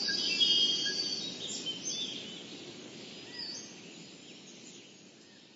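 Nature ambience of birds chirping and whistling over a steady background hiss, fading out gradually.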